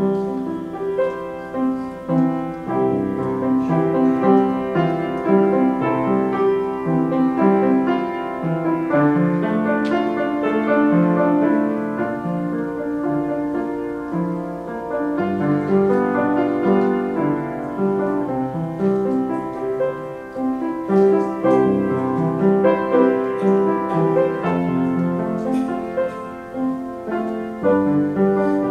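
Solo piano playing an instrumental offertory, with steady chords throughout.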